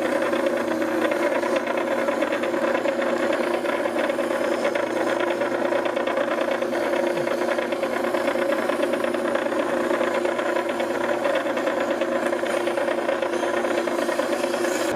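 Benchtop wet wheel grinder running steadily, with a 12-inch planer knife held against its slow whetstone: a steady motor hum with a fine grinding rattle over it.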